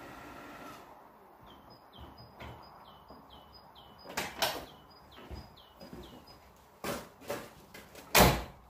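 Door-like knocks and bangs, the loudest about eight seconds in, over a repeated high two-note chirp that runs for a few seconds near the start.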